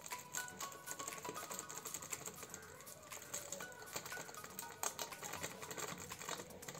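Plastic packet of chili powder crinkling as it is squeezed and tipped over a jar, with faint irregular ticks as the powder pours in.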